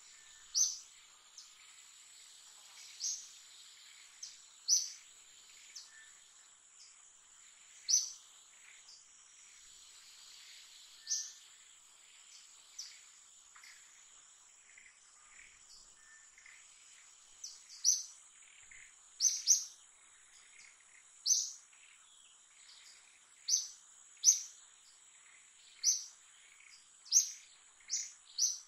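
Birds giving short, sharp, high-pitched chirps, about fifteen of them, one to three seconds apart and coming more often in the second half. Under them runs a steady high insect drone.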